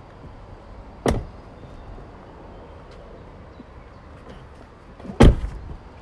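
A Tesla Model 3's doors being shut: one thump about a second in and a louder one near the end.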